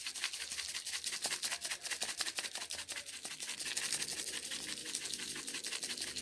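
Rapid, continuous scratchy rustling and scraping from seasoning being worked onto raw cut-up chicken pieces.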